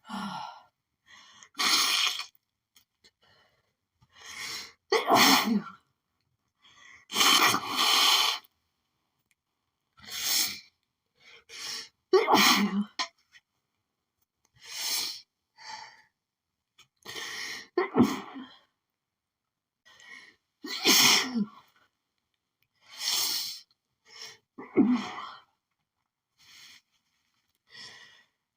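A woman sneezing over and over, about a dozen sneezes two to three seconds apart, with a quick in-breath before each: an allergic sneezing fit that she thinks comes from pollen.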